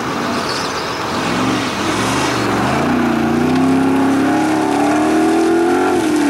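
Formula Offroad buggy's engine running hard, its pitch climbing steadily from about two and a half seconds in, then dropping just before the end.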